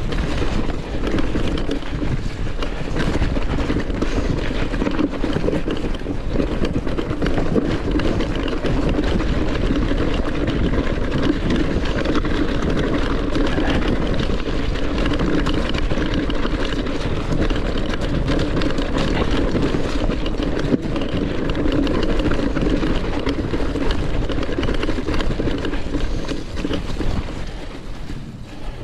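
Wind rushing over the microphone and mountain-bike tyres rolling over a wet, rocky, muddy track at speed, with the bike rattling over the bumps. The noise drops off near the end.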